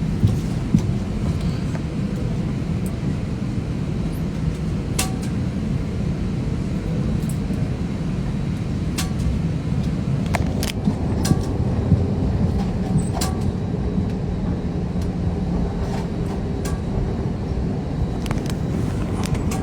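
Steady low rumble of an airliner cabin's air system and machinery while the plane waits to push back, with scattered sharp clicks.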